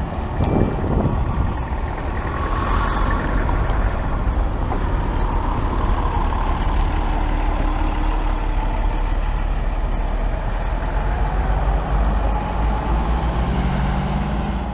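City bus engine running as the bus pulls slowly past close by and drives off, with a steady low engine noise.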